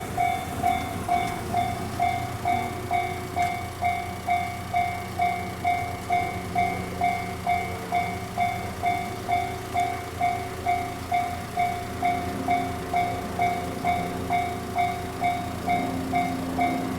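Japanese railway level-crossing warning bell ringing steadily, an even electronic ding about twice a second, signalling that a train is approaching. A low rumble runs underneath.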